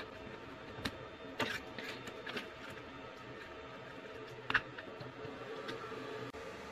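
A few sharp clicks and taps of small hard parts being handled as a screwdriver works a rod end and a 3D-printed arm is pressed onto an RC servo. The sharpest click comes about four and a half seconds in, over a faint steady hum.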